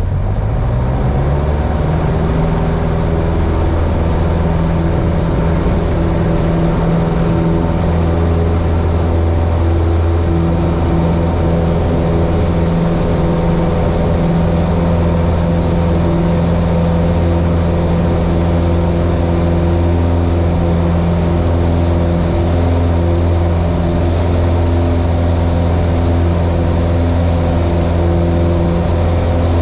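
Piper Warrior's four-cylinder Lycoming engine and propeller heard from inside the cabin, rising in pitch to full power over the first couple of seconds, then running steadily at takeoff power through the takeoff roll and climb-out of a touch-and-go.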